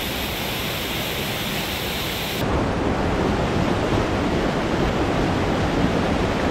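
Mountain creek rushing over boulders and small cascades: a steady rush of whitewater. About two and a half seconds in it abruptly becomes louder and deeper, as from closer to the falls.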